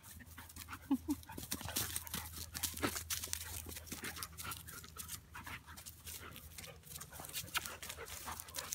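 Two dogs playing and scuffling on grass and dry leaves close to the microphone, a rapid stream of sharp clicks and rustles throughout, with a couple of brief low vocal sounds about a second in.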